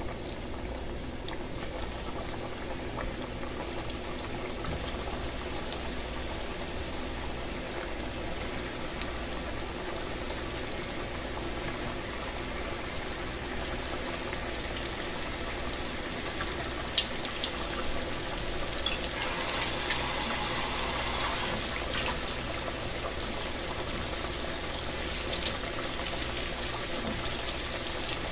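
Breaded salmon pieces deep-frying in a pot of hot oil: a steady sizzle with scattered small crackles, briefly louder for a couple of seconds about two-thirds through.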